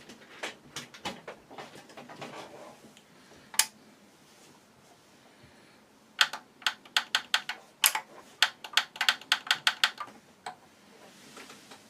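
A series of sharp clicks and taps from hands working controls: a scattered few, one louder click, then a quick run of loud clicks, about three or four a second, for several seconds. No music comes through, because the amplifier is not working.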